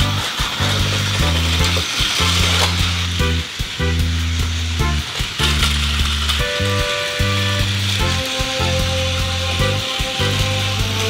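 Plarail battery-powered toy locomotive running along plastic track, its motor and gears giving a steady whirring hiss with scattered clicks from the wheels over the track joints. Background music plays underneath.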